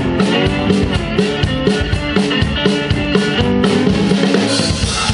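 Live blues band's instrumental break: guitar playing over a drum kit keeping a steady beat on snare and bass drum.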